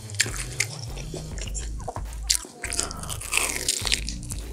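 Close-up crunching bites into crispy breaded cheese pork cutlet (cheese donkatsu), followed by chewing, with a quick run of separate crackles from the fried crust.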